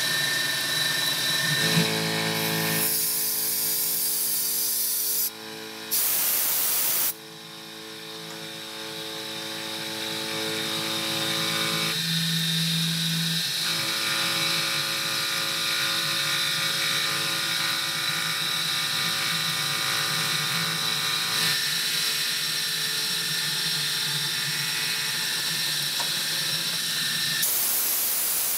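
LV-S20 spindle on a WL400 benchtop CNC mill running while cutting a steel part: a steady pitched machine hum and whine with several tones. Hissing noise comes in a few seconds in and again near the end, and the level dips briefly after about five seconds, then builds back up over several seconds.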